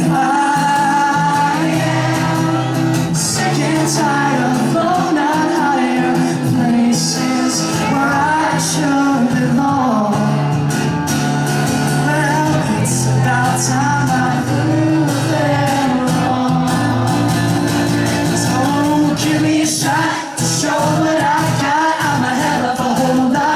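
A man singing a song live into a microphone while strumming an acoustic guitar.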